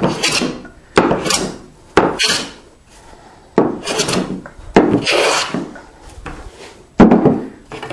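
Hand plane strokes on a wooden board, about six passes, each a shearing swish that starts sharply and fades. These are the last passes planing the board face down to the marking gauge line, to bring it to thickness.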